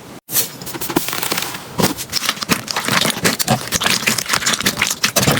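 Slime being squeezed and poked by hand, giving a dense, irregular run of crackling, popping clicks. The sound breaks off briefly just after the start, then carries on.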